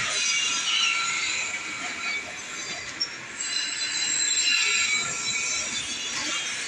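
Pillar drill press boring into a metal sewing-machine plate casting, the bit squealing with several high, wavering tones over steady machine noise. A single short click about three seconds in.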